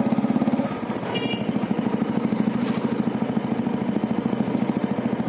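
Small motorcycle engine running at low speed, heard from the rider's seat as a steady, rapid even putter. The engine eases off briefly just before a second in. A short high-pitched sound comes just after.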